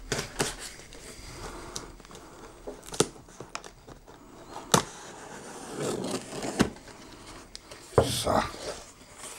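A knife slitting the packing tape on a cardboard box and the cardboard flaps being pulled open: scraping and rustling of cardboard and tape, broken by several sharp knocks and taps, the loudest about three, five and eight seconds in.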